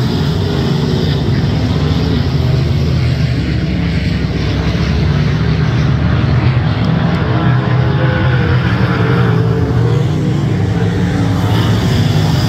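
Winged dirt-track sprint cars racing, their V8 engines running loud and steady as they circle the oval.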